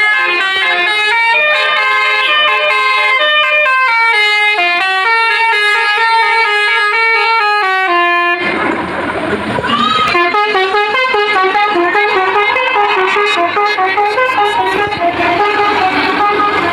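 A bus's Basuri telolet horn playing a melody of clear, stepping notes. About eight seconds in, the rumble of the bus's engine and road noise joins as the tune carries on, with a brief swooping note.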